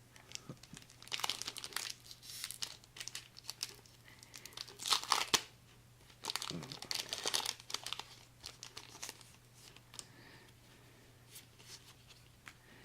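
Foil wrapper of a Pokémon trading-card booster pack crinkling and tearing as it is opened, in irregular bursts for about the first eight seconds, loudest around the middle. After that there are only a few faint clicks and rustles.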